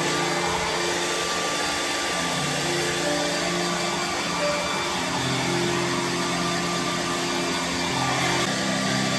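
Handheld hair dryer running steadily, blowing on a small dog's damp coat.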